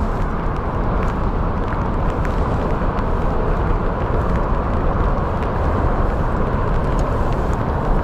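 Wind buffeting the microphone: a steady low rushing noise, with a few faint ticks scattered through it.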